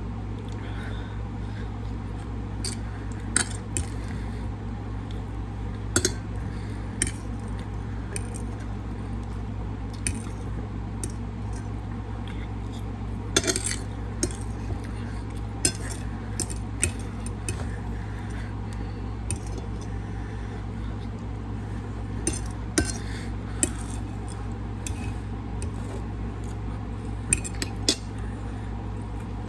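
Cutlery clinking and tapping against a plate during a meal, about a dozen irregular clinks, over a steady low hum.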